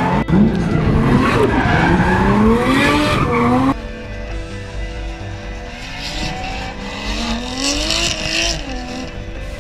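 Drift cars' engines revving up and down hard, with tyres skidding and squealing as the cars slide. About four seconds in, the sound drops abruptly to fainter engines revving and tyre noise farther off.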